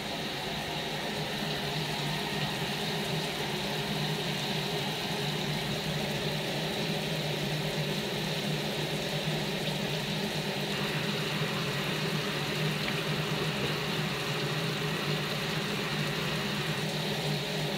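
A steady mechanical hum with a hiss, unchanging throughout, like a motor or fan running in the room.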